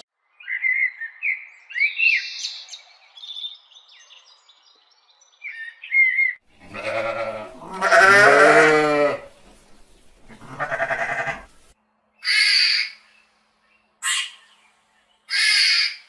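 Birds chirping in short high notes with quick glides, then a sheep bleating three times, wavering, the middle bleat longest. Near the end come three short, high, hissy calls.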